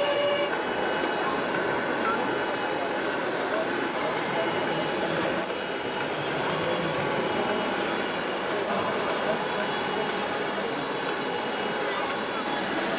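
Steady murmur of many indistinct voices from a crowd of visitors, with no single voice standing out.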